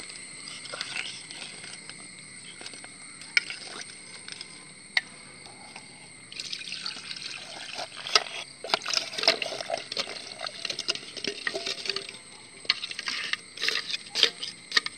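Ice-cold milk being poured into a mixer jar. The pouring splash sets in about six seconds in, with scattered clicks and knocks against the jar.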